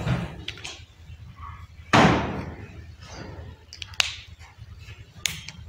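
A single loud thump about two seconds in, fading over about half a second, followed by two sharp clicks, the last near the end.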